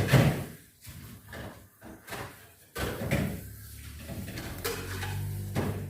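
Household knocks and bangs, like a door, cupboard or drawer being shut: several sharp knocks, the loudest right at the start. From about two-thirds of the way through, a steady low hum runs under a last knock near the end.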